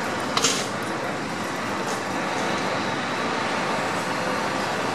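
Steady rumble of road traffic, with one brief sharp noise about half a second in.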